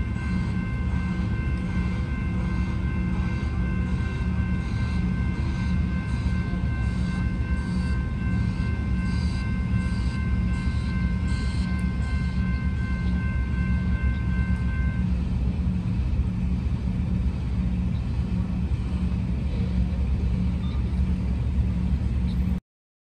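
Railway level-crossing bell ringing steadily, stopping about two-thirds of the way through, over a continuous low rumble.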